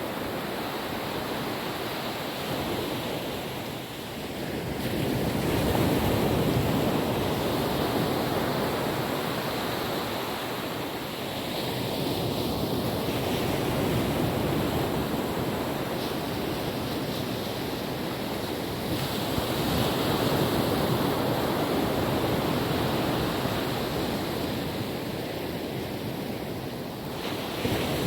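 Calm ocean waves washing onto a beach, a continuous surf that swells and eases about every seven seconds.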